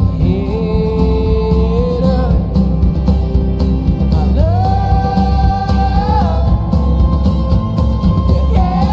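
Music with a steady low bass and beat under a melody of long held notes, each sliding up into the note: three such notes, the second and third higher than the first.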